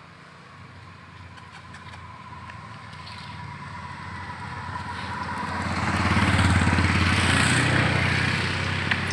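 A motor vehicle's engine approaching and passing close, growing steadily louder over several seconds, loudest about six to eight seconds in, then easing off a little.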